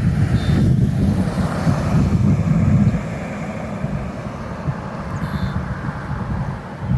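Wind buffeting the microphone as a heavy, uneven low rumble, with a broader wash of noise over the first three seconds that then eases off.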